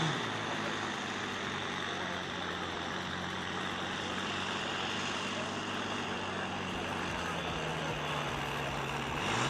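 Volvo FH16 truck's six-cylinder diesel engine running steadily under heavy load as it pulls a weighted sled, its pitch sagging slightly near the end.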